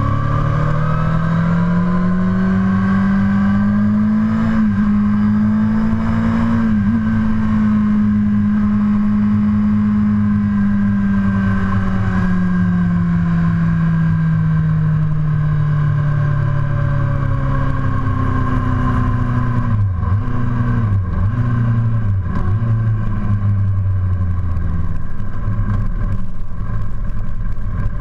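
Honda CBR1000RR's inline four-cylinder engine running at highway speed under a rush of wind noise. Its pitch climbs over the first few seconds, holds, then slowly falls, and wavers a few times about two-thirds of the way through as the throttle is eased.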